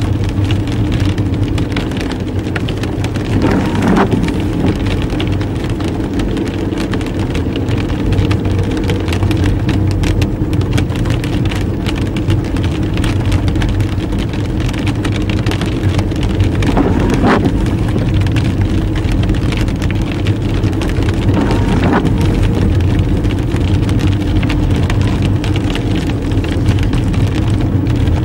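Car engine running and tyres hissing on a wet road, heard from inside the cabin, with rain pattering on the windscreen. Three brief swells of noise stand out, about 4, 17 and 22 seconds in.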